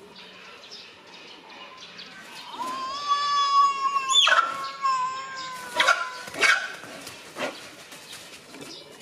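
Malayan tapir squealing: one long, high, whistle-like call of about three seconds that holds a steady pitch, with a sharp upward flick in the middle. A few sharp knocks follow.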